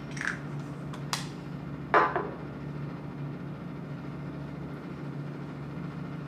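Steady hum of a fan blowing air, with a few small clicks near the start and one sharper knock about two seconds in.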